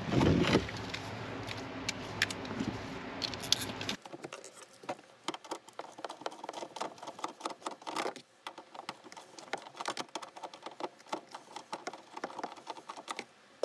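Plastic interior trim being handled and pulled back. After about four seconds it gives way to a long run of quick, light ratchet clicks as a 10 mm bolt behind the trim is backed out.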